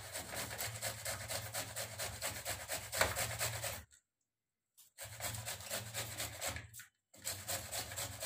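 Cauliflower being grated on a handheld metal grater: quick, even back-and-forth strokes in three runs, broken by short pauses about four seconds in and again about seven seconds in.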